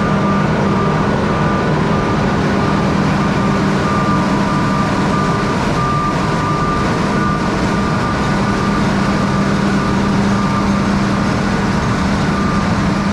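Combine harvester's diesel engine and machinery running steadily at a constant pitch, with a steady high-pitched tone over it.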